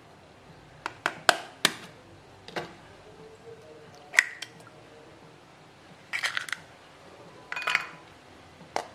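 Duck egg being cracked into a glass bowl: a few sharp taps of shell on glass about a second in, a loud crack about four seconds in, then short clusters of shell crackling as the egg is split open.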